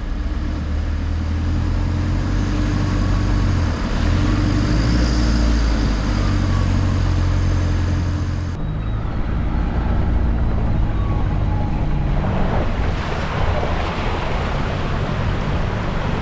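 Four-wheel-drive engine running at low speed as the vehicle crawls through muddy, water-filled ruts, with a steady rush of tyre and water noise over it.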